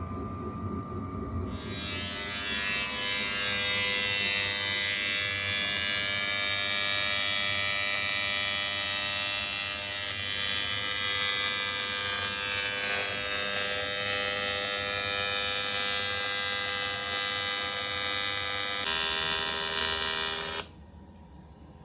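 TIG welding arc buzzing steadily with a high hiss. It strikes up shortly after a low hum, changes tone slightly near the end, then cuts off suddenly as the arc is broken.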